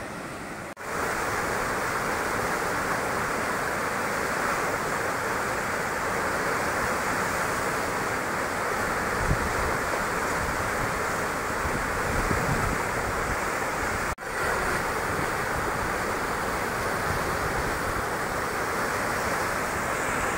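Muddy floodwater spilling over a river weir and churning into white water below it: a steady rushing hiss. It cuts out for an instant about a second in and again about fourteen seconds in. Low wind rumbles on the microphone come for a few seconds in the middle.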